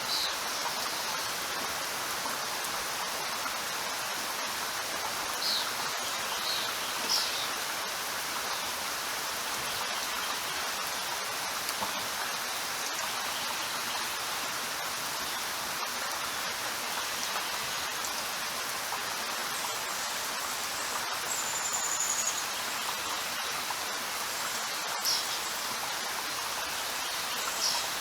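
Steady rain falling, an even hiss of drops with a few brief, sharper drip sounds standing out now and then.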